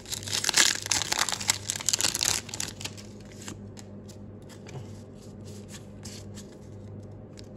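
Foil booster-pack wrapper crinkling and tearing as a Pokémon card pack is opened and the cards are pulled out. About three seconds in it gives way to quieter, scattered clicks of the cards being handled.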